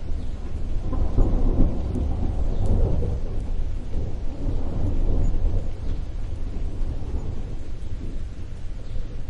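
Rolling thunder rumbling long and deep, swelling about a second in and easing off in the second half, over a steady hiss of rain.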